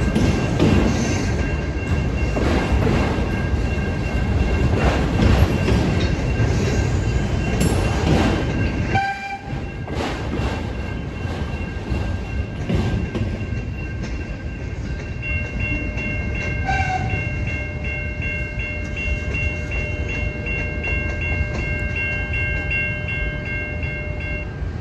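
Autorack freight cars rolling past, wheels clattering over the rail. The rumble drops off about nine seconds in as the end of the train goes by, while steady high-pitched ringing tones carry on through.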